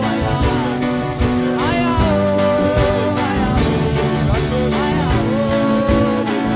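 Worship music from a live band: a held melody line that slides up into each phrase every couple of seconds over steady sustained chords.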